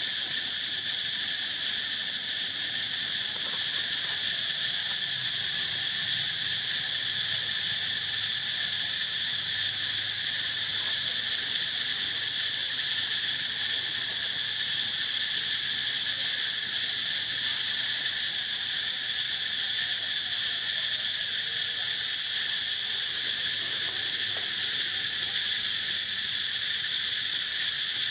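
Steady, unbroken chorus of insects, a continuous high-pitched buzzing drone.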